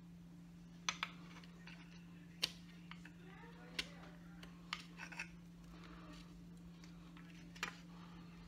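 Irregular sharp clicks, about eight of them, of pliers and a diode's wire leads tapping against a TV power-supply circuit board as the leads are pushed through its holes, over a steady low hum.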